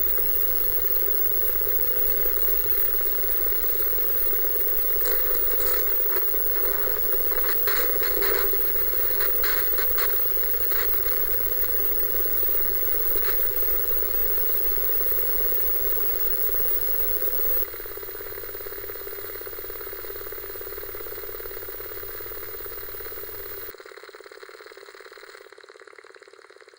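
Analog TV static from an old Panasonic television tuned between channels, processed for extra distortion: a steady hiss with a buzzing hum and low rumble, crackling bursts between about 5 and 11 seconds in. It drops a little in level near 18 seconds, then thins and fades near the end.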